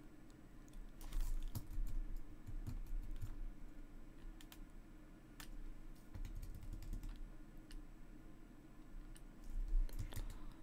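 Scattered, irregular clicks of a computer keyboard and mouse during desktop editing work, with a cluster of quicker clicks near the end, over a low steady hum.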